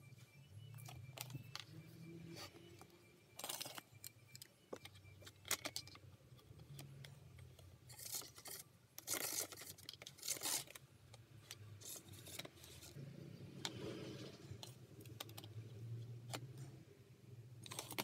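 Chunky plastic toy gears and rods being handled and fitted onto a plastic gearbox frame: scattered light clicks and short rubbing scrapes, a few louder ones near the middle, over a faint low hum.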